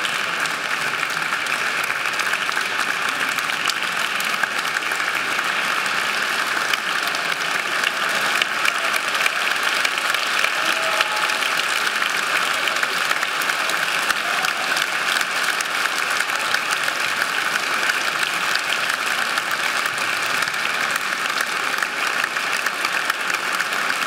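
Audience applauding steadily: a dense, even clapping from a full hall.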